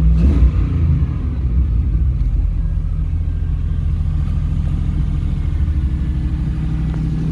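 Fuel-injected GM LS V8 idling with a steady, throaty exhaust rumble through a single Magnaflow muffler and Y-pipe.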